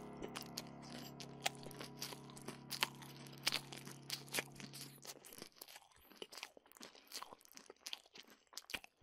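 Close, wet chewing and crunching of food in the mouth, many irregular crunches and clicks, as a horror sound effect of eating flesh. Under it, a low steady drone fades out about five seconds in.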